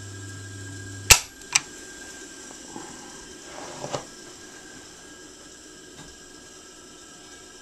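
Two sharp clicks about half a second apart from the push-button power switch under the industrial sewing machine's table, with the electric motor's hum already stopped. Afterwards only a faint steady background with a few soft knocks a little later.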